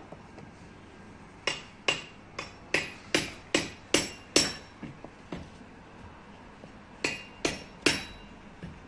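A run of about eight sharp knocks with a short ringing tone, at an even two to three a second, then a pause and three more near the end.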